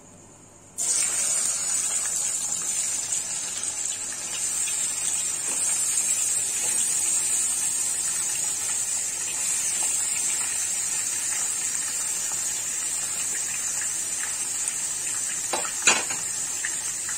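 Raw marinated chicken pieces going into hot oil in a kadai, starting a loud, steady sizzle about a second in as the meat begins to fry. A single knock sounds near the end.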